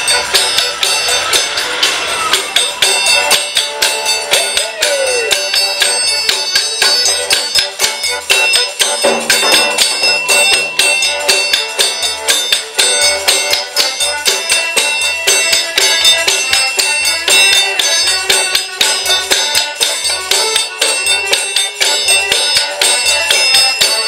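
Rodriguan folk band playing: a diatonic accordion holds the melody over a large frame drum beating a steady low pulse, while a triangle and shaker keep up a fast, even rattling rhythm.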